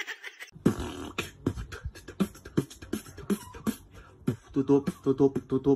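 A rhythmic beat of short percussive hits, about three a second, with a low pitched bouncing line joining in about four and a half seconds in.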